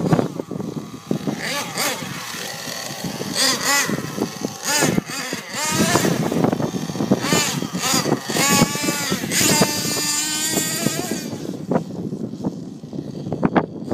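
Nitro engine of a Thunder Tiger MTA Sledgehammer S50 RC truck revving up and down again and again as the truck is driven, in high-pitched rising and falling wails. Near the end the engine drops back and a run of sharp clicks or knocks is heard.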